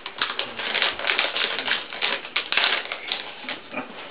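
Plastic packaging being crinkled and torn open by hand: a fast, irregular run of crackles and rustles.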